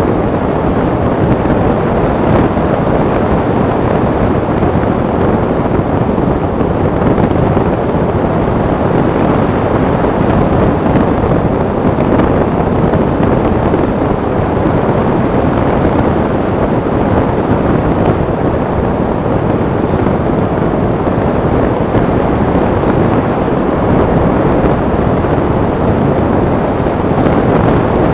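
Steady wind rush from the airflow over the onboard camera's microphone on a foam HK Fox RC glider in flight.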